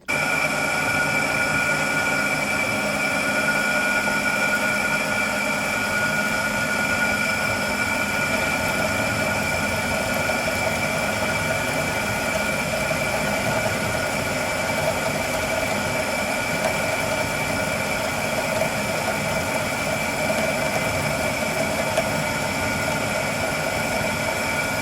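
A power tool running steadily while cutting steel plate, with a constant whine and no change in pitch.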